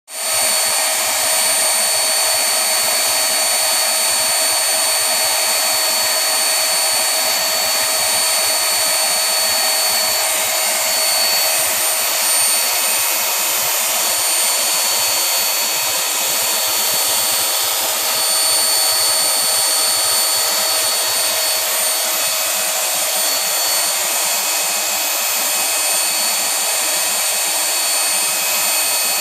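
Homemade workshop chip vacuum running without a break: a loud, steady rushing hiss with a high whine held through it.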